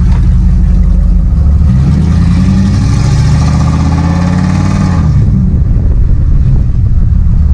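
Motor vehicle engine running under load. It rises in pitch about a second and a half in, holds, then falls back near the middle, with a rush of road or wind noise while it is up.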